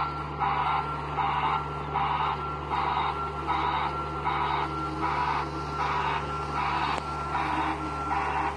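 John Deere compact excavator's travel alarm beeping about twice a second while the machine moves, over the steady drone of its diesel engine.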